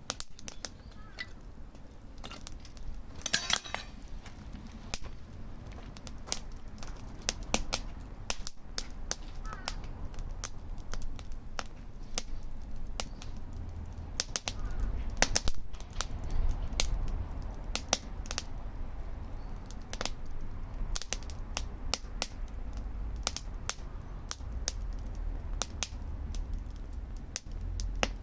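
Campfire crackling and popping in irregular sharp snaps, over a low steady rumble.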